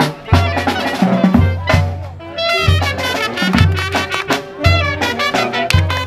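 Live brass band (banda) playing a lively dance tune: trumpets and other horns over deep tuba bass notes about once a second, with drum and cymbal hits.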